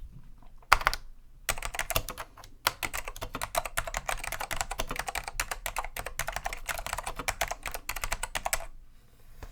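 Typing on a Dell AT101 keyboard with cleaned, unlubricated Alps SKCM Black tactile switches (the 'pine' version, with slitted top housings that cushion the upstroke). A few keystrokes about a second in, then a fast, steady run of key clicks that stops near the end.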